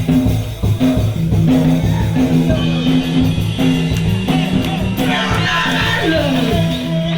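Live punk rock band playing loud: electric guitar and bass holding steady low notes over drums and cymbals.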